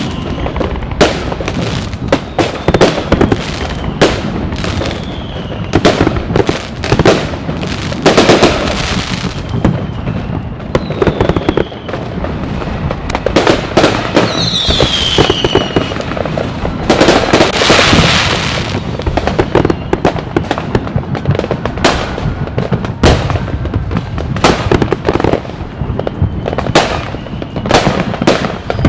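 Fireworks going off in quick succession: many sharp bangs over continuous crackling, with whistling shells falling in pitch a little over a third of the way in and again around the middle.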